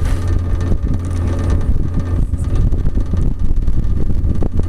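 Boat's outboard motor running steadily under way, a constant low hum, with wind buffeting the microphone.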